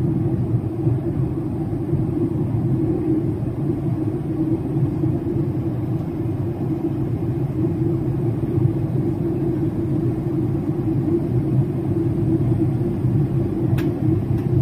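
Steady cabin rumble inside a Boeing 737-800 airliner: engine and airflow noise, with a faint click near the end.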